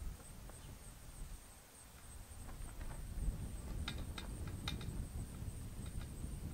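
Quiet outdoor background: a low rumble that grows louder a little over halfway through, with a few short high chirps or clicks.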